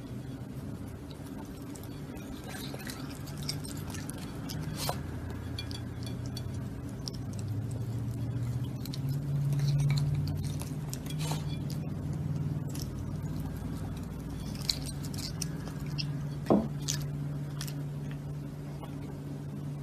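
A raccoon eating whipped cream off a plate: soft licking and chewing with scattered light clicks and a few sharper clinks against the plate, over a steady low hum.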